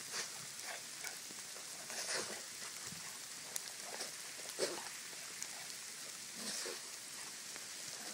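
German Shorthaired Pointer eating snow: irregular crunching and crackling as it bites and laps up mouthfuls of snow, with a few louder crunches scattered through.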